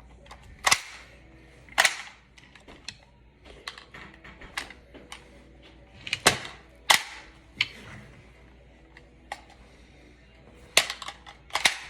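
Sharp clicks and clacks from a homemade prop pistol being handled, about six loud ones spread out among smaller ticks and taps.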